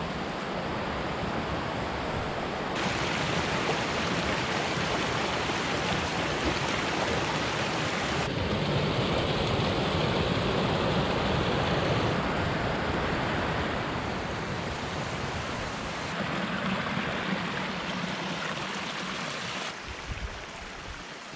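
Mountain stream running: a steady rush of water that changes abruptly in tone several times and grows quieter near the end.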